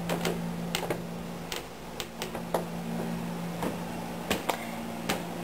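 Footsteps going down stairs and onto a tile floor: about a dozen light, irregular knocks and clicks over a steady low hum.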